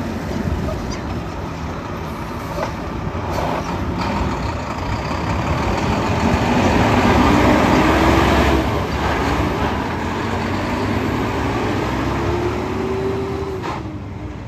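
Mack concrete mixer truck's diesel engine running as it drives past at close range, loudest as it goes by. The engine note rises twice as the truck accelerates away.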